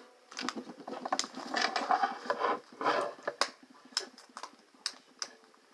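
Handcuffs and a transport box being handled: rattling and shuffling with a string of sharp, separate clicks, about five of them standing out in the second half.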